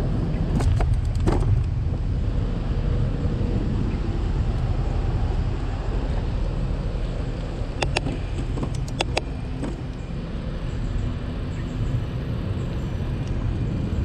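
Wind and road rumble from a bicycle riding along a paved road: a steady low rumble, with a few sharp clicks about half a second in and again around eight to nine seconds in.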